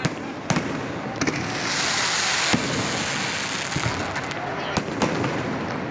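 Aerial fireworks going off: scattered sharp bangs and crackles, with a loud hissing rush lasting about a second near two seconds in.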